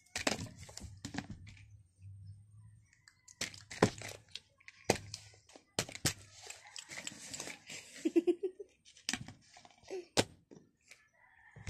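Plastic being handled: crinkling rustles with sharp clicks and taps, a dozen or so irregular knocks, and a brief giggle-like voice sound about two thirds of the way in.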